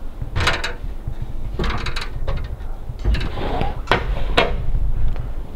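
A handful of sharp knocks and clacks on an aluminium ladder and wooden boards as someone climbs up into a loft, over a steady low rumble of camera handling.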